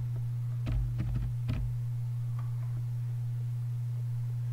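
Four quick computer-keyboard keystrokes, clicking about a second in, over a steady low electrical hum.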